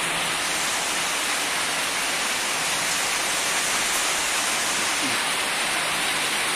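Steady rain falling: an even, unbroken hiss of rainfall.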